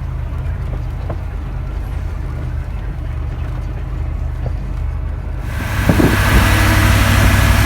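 Heavy vehicle's engine running with a steady low hum. About five and a half seconds in, a much louder hissing noise suddenly joins it.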